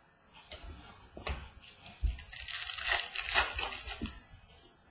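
Baseball trading cards being handled. A couple of light taps are followed, about two seconds in, by a scratchy rustle of about two seconds as glossy cards slide and rub against each other.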